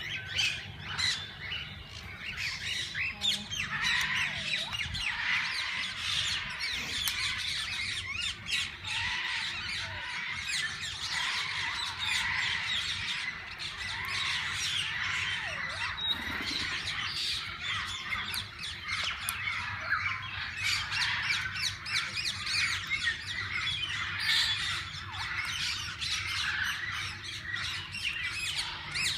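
A flock of parakeets chirping and squawking together, a continuous dense chatter of many overlapping short calls.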